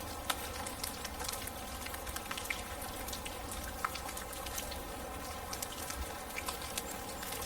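Steady rain, with many separate drops ticking sharply on a surface.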